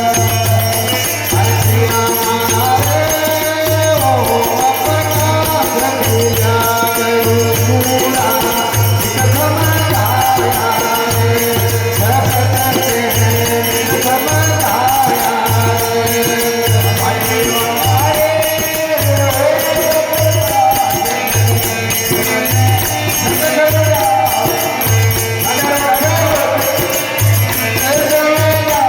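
Rajasthani devotional bhajan: voices chanting a wavering melody over a repeating low drum beat and steady jingling hand percussion.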